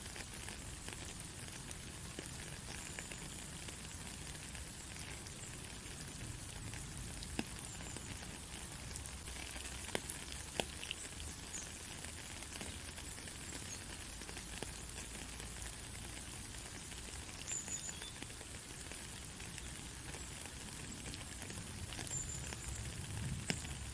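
Steady rain falling on a country road: an even patter of many drops with a few louder single drop hits.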